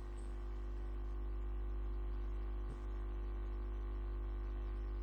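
Steady low electrical hum with several faint fixed tones above it, unchanging apart from a brief dip about three seconds in.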